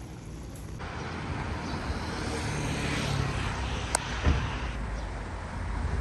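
Street traffic outside: a passing car's rumble swells and fades, with a sharp click and a thump around four seconds in.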